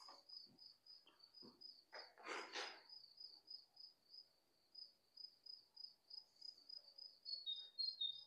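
Faint high-pitched chirping, repeated about four times a second, with a second, slightly lower chirping joining near the end. About two seconds in, footsteps crunch briefly on rubble.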